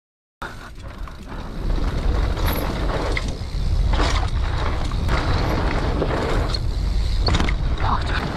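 Mountain bike descending a dirt trail, recorded on the rider's camera: wind buffeting the microphone as a steady low rumble, with tyres crunching over dirt and gravel and short rattles and knocks from the bike over bumps. It starts after a brief silence and gets louder as the bike picks up speed.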